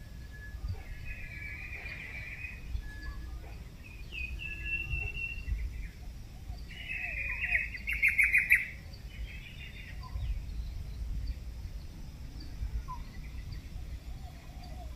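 Birds chirping and singing in several short phrases, loudest about seven to eight and a half seconds in, over a faint low background noise.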